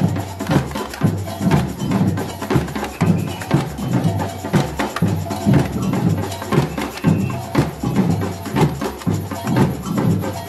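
Brazilian samba percussion band playing live: deep bass-drum strokes about twice a second under dense snare drum and sharp wood-block-like clicking, a steady carnival groove.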